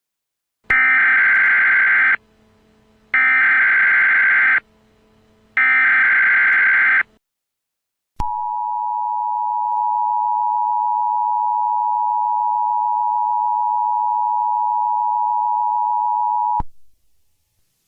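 Emergency Alert System activation tones: three short data bursts of the SAME header, then the steady two-tone EAS attention signal, held for about eight seconds before cutting off. This is the standard opening of an emergency alert broadcast.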